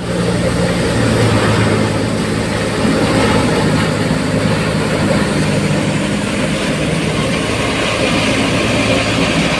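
Tractor-powered wheat thresher running at working speed: a steady, loud mechanical din of the engine's low hum and the machine's spinning drum and fan as wheat is fed in and threshed grain pours out.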